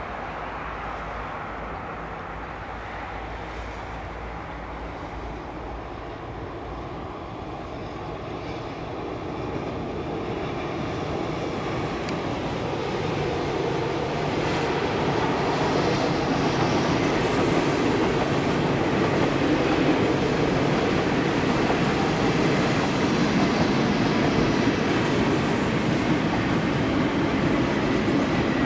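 A double-deck electric passenger train approaches and rolls across a stone viaduct. The steady rolling noise grows louder over about fifteen seconds, then holds at its loudest as the coaches pass.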